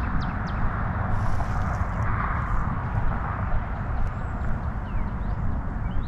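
Steady low rumbling outdoor noise, with a few faint high chirps.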